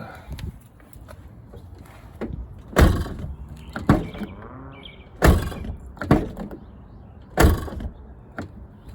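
Car door hardware on a 2005 Mustang's passenger door clunking: about five sharp clunks a second or so apart as the newly fitted door handle and latch are worked.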